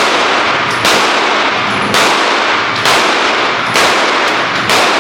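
A steady string of six gunshots, about one a second, each ringing on in a long echo.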